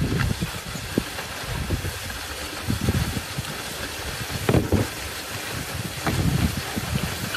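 Wind buffeting the microphone: irregular low rumbling gusts over a steady hiss, with a brief knock about halfway through.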